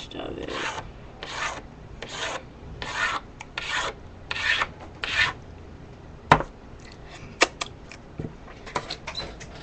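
Spilled ice cream being wiped up: about eight rubbing strokes across a surface, roughly one every 0.7 s. About six seconds in the wiping stops and a few sharp clicks and knocks follow.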